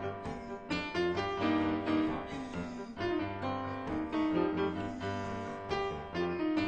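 Background piano music, a steady flow of notes and chords.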